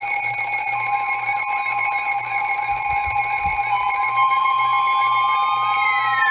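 Emergency alert tones starting abruptly: several steady alarm tones sounding together with a warbling tone, and a siren starting to sweep up and down in pitch near the end.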